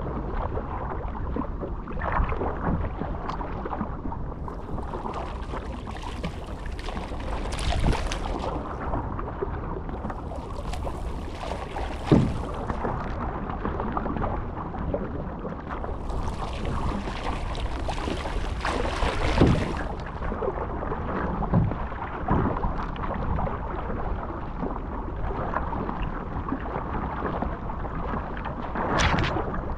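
Surfski being paddled through choppy sea: water rushing and slapping along the hull and the paddle blades splashing in and out with each stroke. A few louder splashes stand out, one about twelve seconds in, one near twenty seconds and one near the end.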